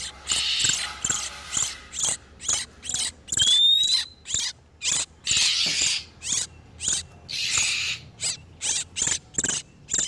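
Oriental magpie-robins calling, male and female in breeding condition: rapid sharp chip notes at about three to four a second, broken by several harsh rasping calls and one clear rising whistle about three and a half seconds in.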